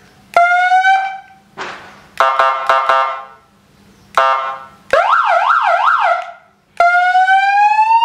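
Electronic three-tone siren through a 30 W, 12 V horn speaker, switched between tones from a push-button remote: a short rising whoop, two blaring horn blasts, a fast up-and-down yelp, and near the end a slowly rising wail.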